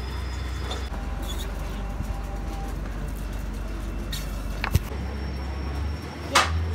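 Steady low mechanical rumble, with a sharp metallic click about two thirds of the way through and another near the end.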